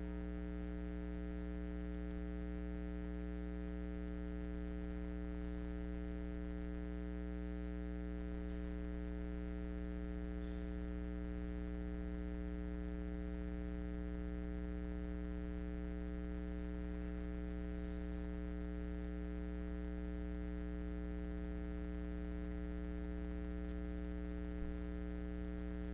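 Steady electrical mains hum with many buzzing overtones, unchanging throughout, with a few faint soft ticks and rustles on top.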